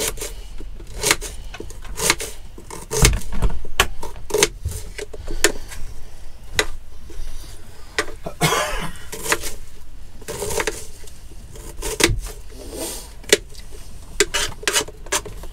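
Kitchen knife chopping an onion on a plastic chopping board: irregular sharp taps of the blade striking the board. There is a brief rustle about eight seconds in.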